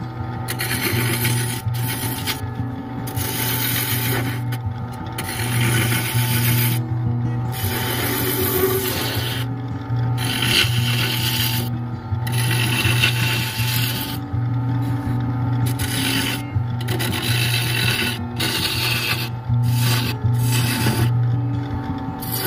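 Wood lathe running with a steady low hum while a gouge cuts into the spinning wooden blank. The scraping cut stops and starts every second or two as the tool goes on and off the wood.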